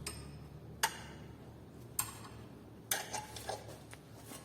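Sharp metallic clicks, roughly one a second with a quick cluster of a few after about three seconds, from a wrench turning an M10 thread tap to chase a damaged thread.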